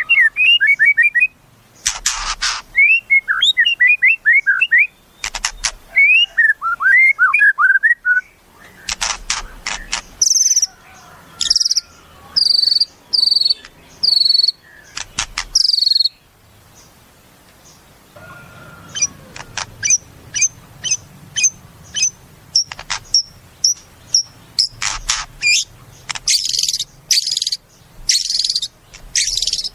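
White-rumped shama (murai batu) singing a varied song. It mixes clusters of quick downslurred whistles and harsh crackling notes with high clear repeated notes. After a short pause about halfway through, it gives a fast run of short high notes about two a second, ending in more harsh notes.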